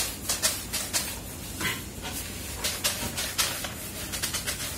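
Whiteboard eraser wiping across a whiteboard in quick, repeated rubbing strokes.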